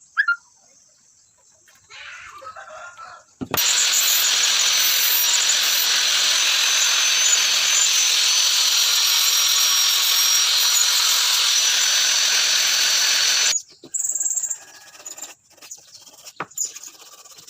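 A small electric power tool starts suddenly about three and a half seconds in, runs steadily with a thin high whine for about ten seconds, then cuts off. A few short clicks and knocks follow.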